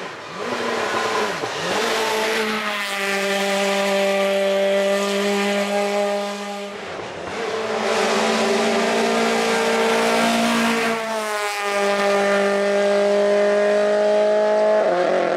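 Suzuki Swift GTi race car's four-cylinder engine running hard at high revs on a steady note, with a brief lift about seven seconds in, then rising in pitch as it accelerates near the end.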